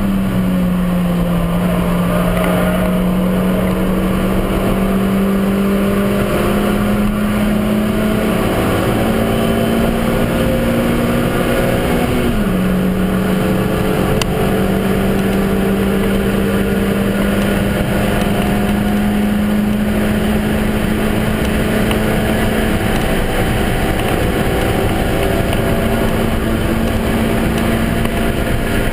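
Suzuki Swift Sport's 1.6-litre four-cylinder engine running hard at high revs, heard inside the stripped-out cabin over road and wind noise. Its pitch climbs slowly as the car accelerates; about twelve seconds in it drops suddenly with an upshift, then climbs again.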